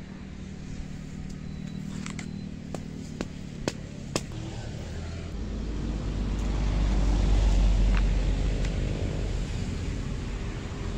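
A passing motor vehicle: a low engine rumble swells to its loudest about three-quarters of the way through, then fades. Before it comes a steady engine hum, and several sharp snaps from sticks being broken at a small wood campfire.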